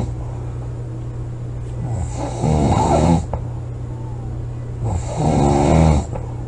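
A woman snoring loudly in a regular rhythm: two snores about three seconds apart, one about two seconds in and one about five seconds in, each lasting about a second, over a steady low hum.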